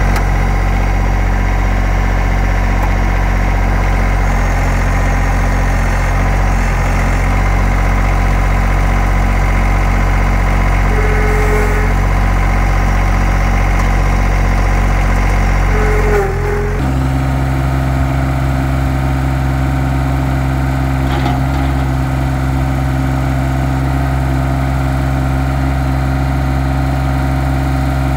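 2021 Yanmar SA24 compact tractor's diesel engine running steadily at idle. About sixteen seconds in, the engine note changes abruptly, then holds steady again.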